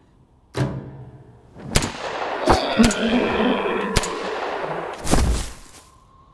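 Pistol gunshot sound effects: about six sharp shots spread over some five seconds, with a dense rumbling, ringing noise carrying on between the middle shots and the last, longest blast near the end.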